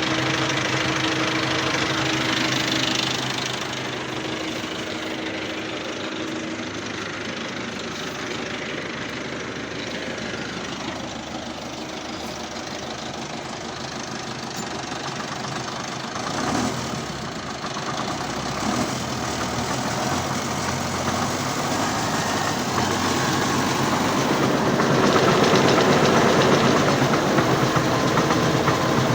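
Tractor engine running with the KVF-2.8 vertical rotary cultivator driven off it. The sound drops a few seconds in and grows louder again through the second half. The cultivator appears to be working properly, as the owner judges.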